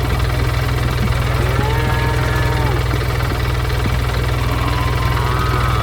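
Heavy vehicle engine idling with a steady, fast low chugging, with a few short pitched sounds that rise and fall above it.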